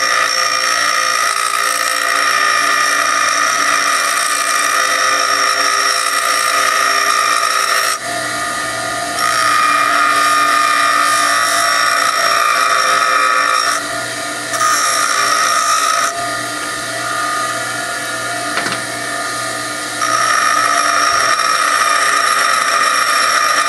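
Bench grinder running with a hardened steel bolt and slider-pin piece held against the corner of the wheel, grinding a notch into its face. A steady grinding whine, with a few short letups in the middle.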